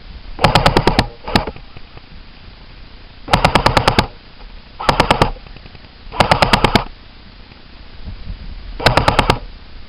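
Airsoft rifle firing about six short full-auto bursts, each a rapid string of sharp clicks about half a second long at roughly ten shots a second, with pauses between them.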